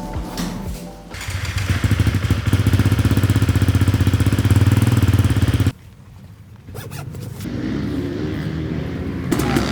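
Single-cylinder four-stroke engine of a GasGas 350 motocross bike running loudly with rapid even firing pulses, its top end freshly rebuilt. It cuts off abruptly about six seconds in, and a quieter engine sound builds near the end.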